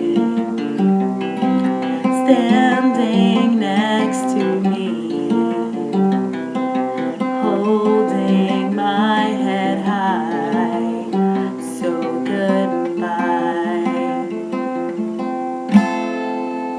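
Acoustic guitar playing the closing bars of a folk song, with wordless singing over it in places; a last sharp strum rings near the end.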